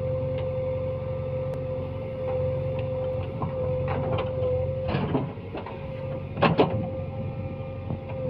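Heavy diesel machinery running with a low, even hum and a steady high whine, with a few clanks, the loudest about six and a half seconds in.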